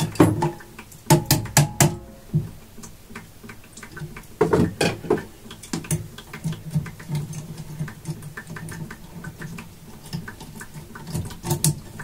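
Irregular small clicks, taps and rattles of metal hand tools and fittings being handled while a well pressure switch is worked onto its pipe fitting, with a few busier clusters of knocks.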